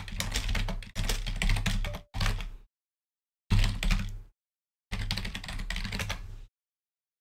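Typing on a computer keyboard: several quick bursts of key clicks with dead-silent gaps between them. The typing stops about six and a half seconds in.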